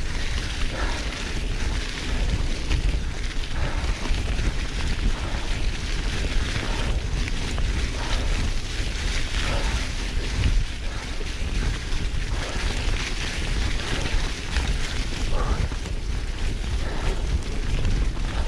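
Wind rushing over the microphone, with tyres rolling and rumbling over a leaf-covered dirt trail as a rigid steel Marin Muirwoods bike descends at speed.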